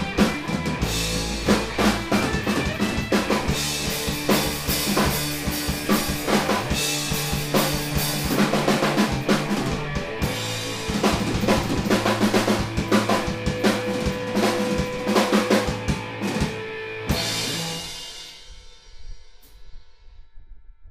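Instrumental rock band playing loud: distorted electric guitar, electric bass and a Pearl drum kit with busy snare, bass-drum and cymbal hits. About 17 seconds in, a final hit ends the song, and the guitar and cymbals ring out and fade away.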